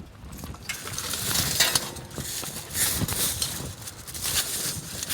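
Semi truck tire cable chains rattling and clinking as they are handled and draped over the top of a tire, in uneven bursts.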